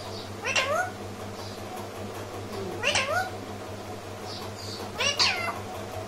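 Rose-ringed parakeet giving three short calls about two seconds apart, each a quick sweep in pitch, over a steady low hum.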